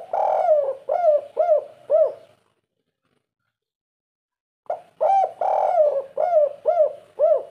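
Spotted dove cooing: two phrases a few seconds apart, each a long coo followed by three short, evenly spaced notes. This is the 'kuk 3' song ending, which is rare and much sought after by dove keepers.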